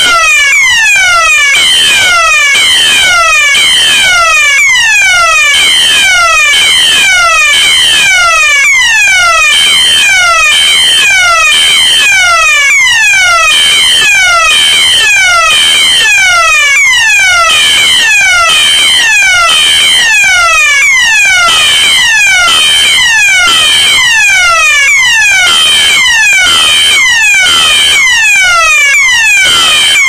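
A Siemens ROLP fire alarm sounder and a System Sensor horn strobe sounding together. The Siemens gives the German DIN 33404 alarm tone, a falling sweep that repeats about once a second. The System Sensor horn beeps over it in repeated high-pitched blasts.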